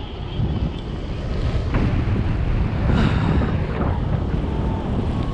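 Airflow rushing over the microphone in paraglider flight, gusting louder in the middle. Near the end a variometer gives a few short beeps, the tone that signals climbing air.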